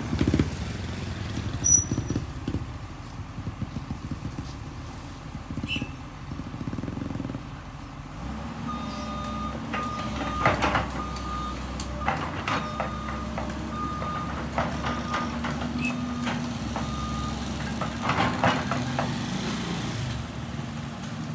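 JCB crawler excavator's diesel engine running up, with its electronic travel alarm beeping steadily, a little under a second apart, from partway in until near the end. Motorcycle engines pass near the start and again near the end.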